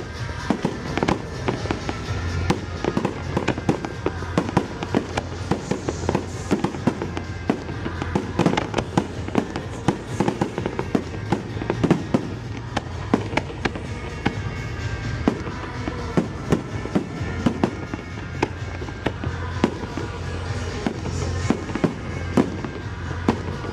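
Fireworks going off in rapid succession: a steady stream of bangs and crackles with no pause, over music played through loudspeakers.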